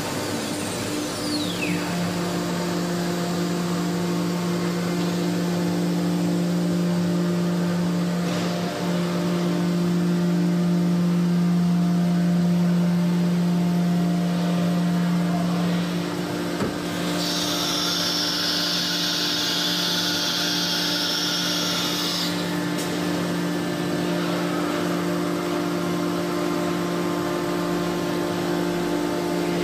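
CNC router with an automatic tool changer running with a steady machine hum. In the first second its spindle whine falls steeply as the spindle spins down. About two-thirds of the way through, a hiss of compressed air lasts about five seconds, the pneumatic release and blow-off of the tool change.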